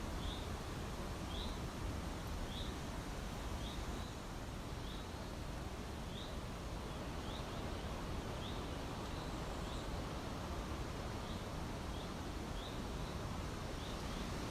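A small bird chirping over and over, one short high note about every half second to second, over a steady outdoor background hiss with a low rumble.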